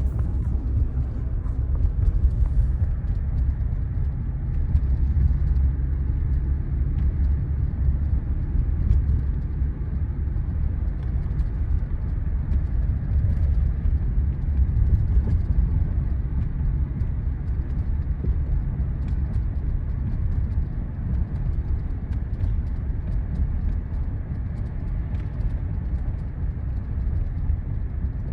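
Inside the cab of a 2022 Toyota Tundra while driving: a steady low road and engine rumble, with faint irregular ticks scattered through it. The ticks are the tapping rattle from the passenger door, caused by loose parts inside the door panel.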